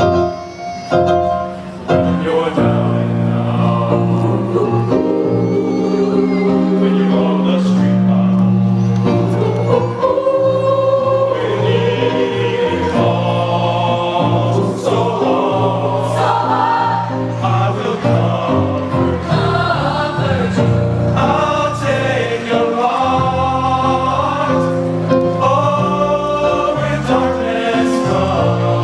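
A high school choir singing a song, with held low notes beneath the voices. After a brief dip about a second in, it continues steadily.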